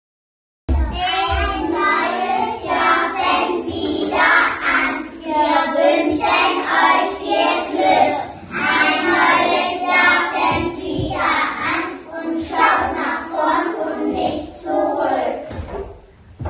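A group of young children singing a song together in unison. The singing starts suddenly just under a second in and ends shortly before the close.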